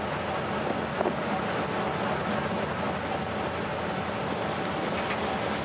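A ferry under way: a steady rush of wind and water, with a low, even engine hum underneath.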